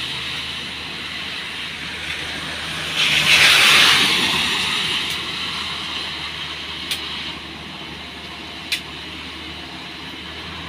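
A car's tyres hissing through standing water on a wet road as it passes close, swelling about three seconds in and fading as it goes. Under it is the steady low hum of a UD Quester truck's diesel engine coming up the road. Two sharp clicks come near the end.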